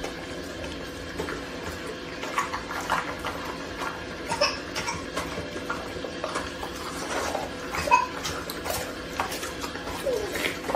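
A pit bull chewing and licking raw chicken on a tile floor: irregular wet smacks and sharp clicks of teeth and food against the floor.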